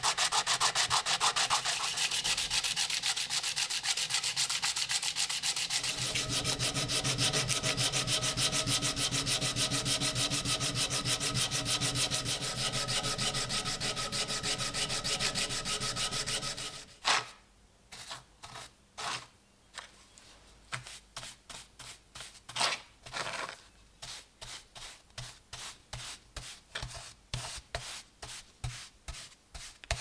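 Hand sanding of a small knife part: quick, continuous back-and-forth strokes of abrasive paper on the piece. A little over halfway through, this changes to slower, separate strokes with short pauses, quieter.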